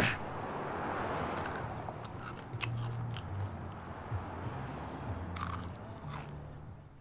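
Crickets chirping steadily in a pulsing high trill over a low hum, with a few light clicks.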